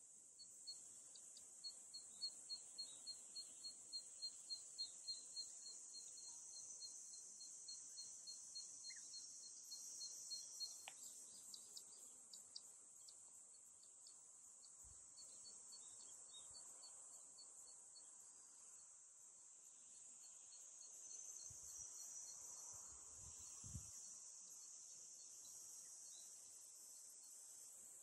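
Faint summer cicada chorus, a steady high-pitched hiss. A separate pulsed call repeats about three times a second through roughly the first eleven seconds, then stops. A few low thumps come around the middle and again later.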